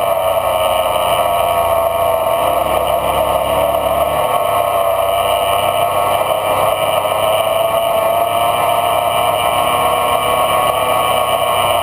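Off-road vehicle engine running steadily at a cruising pace, heard from on board, its pitch wavering slightly as it goes.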